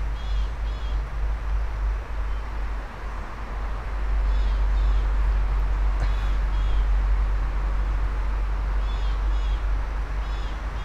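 A bird calling short, high notes in small groups several times, over a steady low rumble and a hiss that grows a little about four seconds in.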